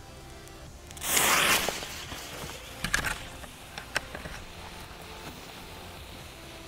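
Thick fuse of a large Super Dynamite firecracker catching with a loud hiss about a second in that dies away within a second, followed by a few sharp clicks while the lit fuse burns down.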